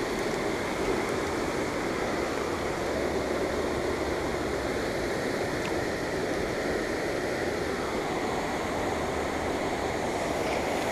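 Rushing creek water, a steady even rush with no change throughout.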